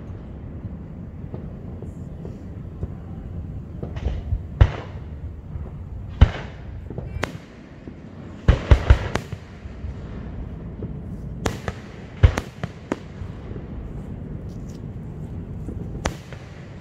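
Aerial fireworks shells bursting: about a dozen sharp booms, mostly single, with a quick run of four about halfway through and faint crackling between them.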